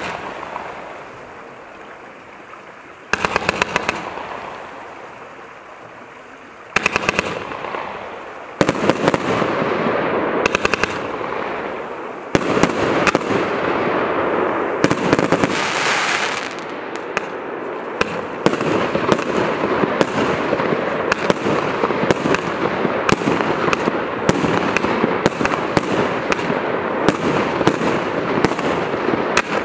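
Celtic Fireworks X-TREME 165-shot firework cake firing from its 20, 25 and 30 mm tubes. It starts with short volleys of rapid launches a few seconds apart, then goes into a dense, continuous run of launches and bursts with a brief hissing rush about halfway. It ends with a fast, steady string of sharp reports.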